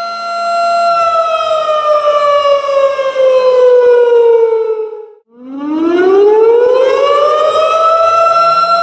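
Tornado warning siren holding a steady wail, then winding down in pitch from about a second in, cutting out briefly about five seconds in, and winding back up to its full pitch, where it holds again near the end.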